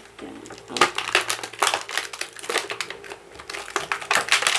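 Clear plastic blister packaging crinkling and crackling in the hands in irregular bursts, as the action figure is worked out of its tray.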